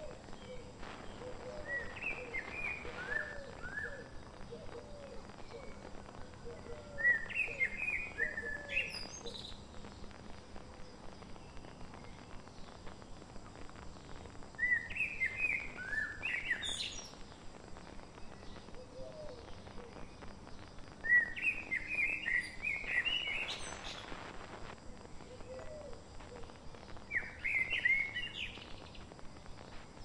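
A songbird singing five times: each time a short phrase of quick, descending whistled notes, about every six seconds. Underneath are softer low notes at times and a faint, steady ticking.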